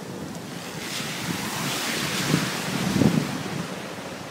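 Wind on the microphone over the steady rush of a flooded river. The noise swells through the middle, with low gusts buffeting the microphone a little past two and three seconds in.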